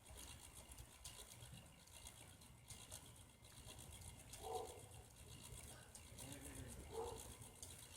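Faint, rapid clicking of a K'nex roller coaster's chain lift hauling a car up a hill.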